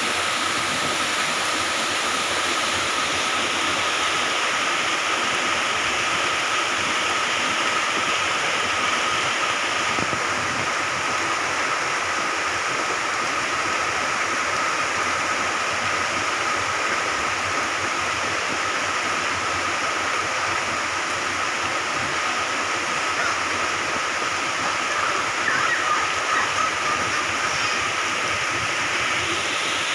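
Moderate to heavy rain falling, a steady even hiss of rain with a thin steady high tone running under it.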